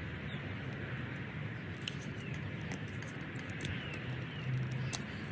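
A folding grafting knife pares a green avocado scion into a wedge, a soft steady cutting sound over a low hiss, swelling slightly about four and a half seconds in. A few faint short bird chirps sound in the background.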